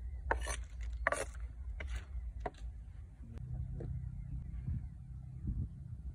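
Kitchen knife scraping and peeling the dry papery skin off a red onion: five or six short scratchy strokes in the first two and a half seconds. After that, peeled onions are set down on a wooden plank with a couple of soft knocks, over a steady low rumble.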